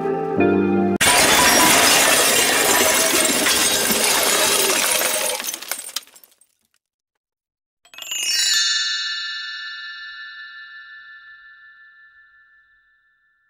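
A guitar tune ends, then a long crash of junk and debris tumbling, dense and noisy for about five seconds before dying away. After a short silence, a bell tree is swept downward and its bells ring on, fading slowly.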